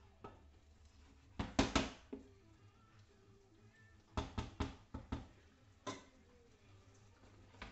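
A wooden spoon stirring pasta in a frying pan and knocking against the pan. There is a cluster of knocks about a second and a half in, a quick run of four or five knocks between about four and five seconds, and a last one near six seconds.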